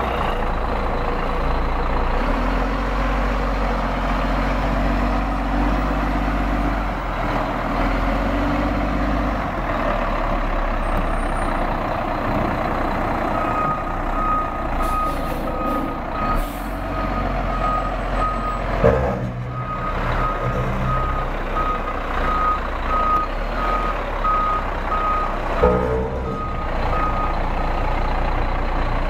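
A 2004 Peterbilt front-load garbage truck's diesel engine runs steadily as the truck drives off. About halfway in, its backup alarm starts beeping at a steady pace and stops near the end. Two short, loud bursts come in while the alarm sounds, roughly seven seconds apart.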